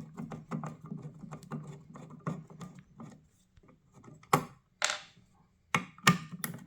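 A T20 Torx screwdriver undoing screws on a plastic xenon headlight housing: a run of small ticks and scraping, then several sharp separate clicks about four to six seconds in.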